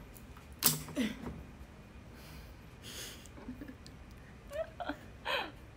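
A young woman's short breathy vocal sounds: a sharp exhaled laugh, then quick huffs of breath and soft giggles, a few short bursts spread over several seconds.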